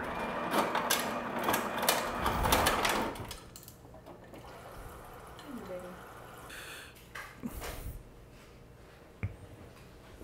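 Kitchen handling noise: about three seconds of dense rattling and clicking, then quieter, with a few single knocks later on.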